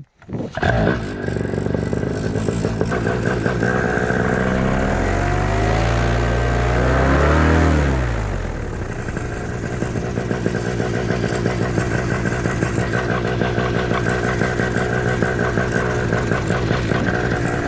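Vittorazi Moster 185 single-cylinder two-stroke paramotor engine starting about a second in, revving up and back down around the middle, then running steadily at a constant speed while it warms up.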